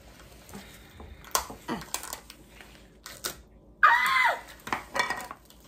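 Small plastic toy packaging crackling and clicking as it is handled and opened. About four seconds in, a girl gives a short, high excited 'ooh', the loudest sound, followed by a softer vocal sound.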